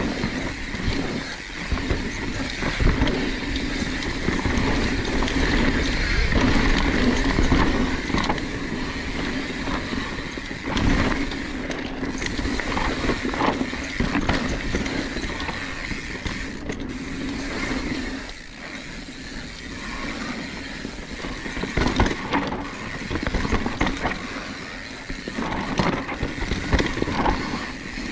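Mountain bike rolling fast down a dirt singletrack: continuous tyre and drivetrain noise with a steady whirring hum that eases off a little past halfway, broken by sharp knocks and rattles as the bike hits bumps, about once around the middle and several times near the end.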